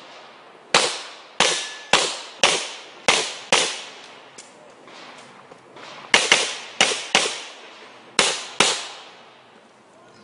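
Pistol shots fired in quick pairs, about a dozen in all, each with a short echoing tail. There is a pause of about two seconds near the middle before the pairs resume.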